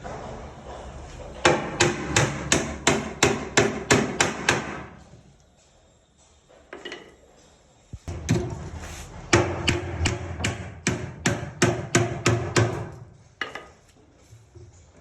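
Hammer blows in two quick runs of about three strikes a second, with a pause of a few seconds between the runs.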